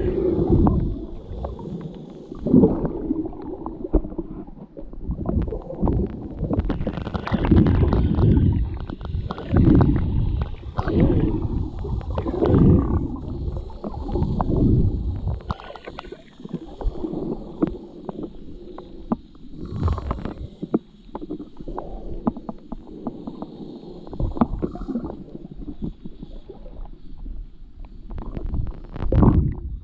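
Muffled underwater water noise picked up by a submerged camera: irregular low rumbling surges and gurgles of water moving around the camera, with scattered sharp clicks and knocks.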